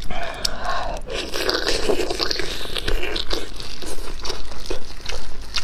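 Close-miked eating sounds: biting and wet chewing of a thick sauce-coated sausage, with many sharp clicks and a denser stretch of noise in the first three seconds.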